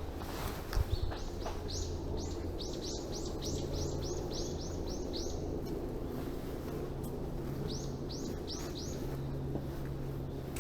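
A songbird singing a quick series of repeated high, arched notes, about three a second, in two runs: a long one over the first half and a shorter one near the end. A steady low hum lies underneath.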